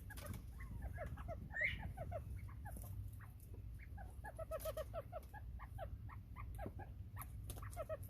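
Northern bobwhite quail chicks peeping over and over in many short, falling chirps, with one louder call about a second and a half in, over a steady low rumble.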